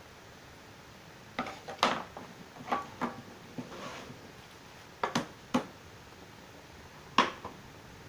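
A series of sharp knocks and clicks at irregular intervals, about eight, the loudest near two seconds in and again near the end.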